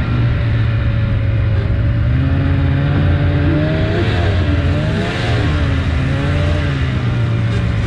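Snowmobile engine running steadily as the sled travels along a trail, its pitch wavering up and down briefly about four to five seconds in as the engine speed changes.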